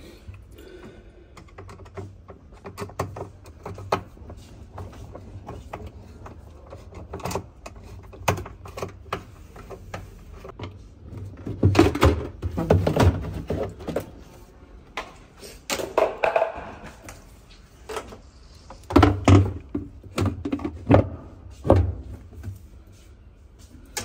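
A screwdriver and plastic parts clicking, knocking and scraping inside the steel drum of a top-loading washing machine as the pulsator's cap and centre screw are worked loose and the wash plate is changed. The knocks come in irregular clusters and are loudest near the middle and in the last few seconds.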